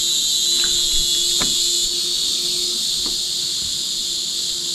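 Dense, steady, high-pitched chorus of insects, with a faint low hum beneath it.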